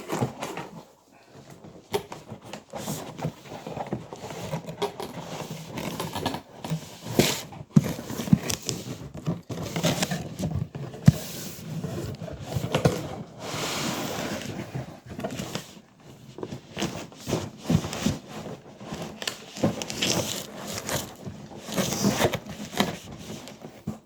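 Cardboard box and plastic packaging being handled and pulled at, a run of irregular rustling, scraping and crinkling with sharp clicks.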